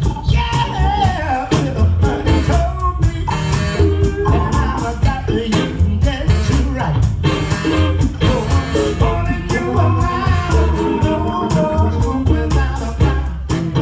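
Live soul band playing on stage with a steady drum beat: upright bass, drum kit, electric guitar and saxophones, with a male lead singer singing over them.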